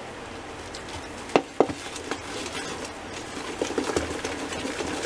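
Metal spoon stirring and beating a thick, coarse moong dal batter in a plastic bowl: two sharp knocks about a second and a half in, then quick, repeated stirring strokes.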